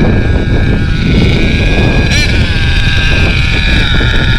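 HPI Savage X4.6 nitro engine, a small two-stroke glow engine, running at high revs with a steady high-pitched tone, a quick blip in pitch about two seconds in, over a heavy low rumble.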